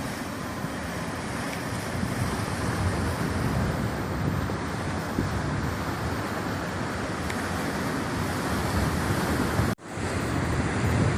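Rough, stormy sea: a continuous rush of waves and surf with wind buffeting the microphone. The sound cuts out for an instant near the end, then comes back.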